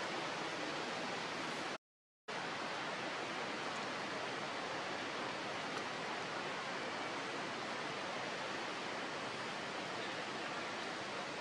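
A steady, even hiss with no other sounds in it, dropping out to dead silence for about half a second around two seconds in.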